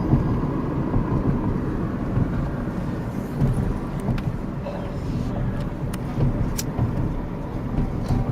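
Road noise inside a moving car: a steady low rumble of engine and tyres, with a few faint ticks in the second half.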